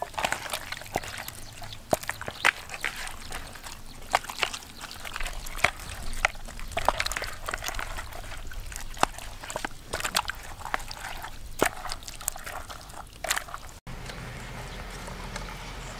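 Wet squelching and slapping of hands kneading marinade into raw poultry pieces, in irregular short strokes. Near the end it cuts off and a steadier, quieter outdoor background takes over.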